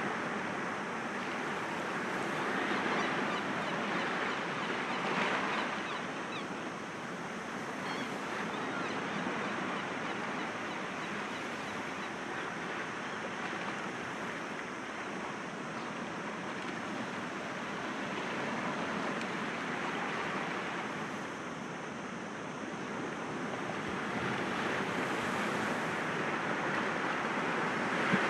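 Sea waves breaking gently against rocks: a continuous wash of surf that swells a little a few seconds in and again near the end.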